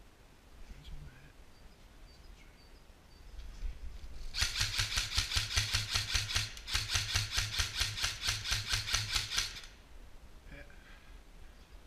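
Airsoft gun firing two long strings of rapid, evenly spaced shots with a brief break between them, each shot a sharp click over a pulsing motor hum.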